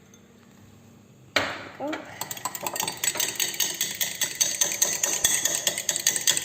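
A utensil beating egg, oil and milk in a dish: a sharp clatter about a second in, then quick clinking strokes against the dish that grow louder.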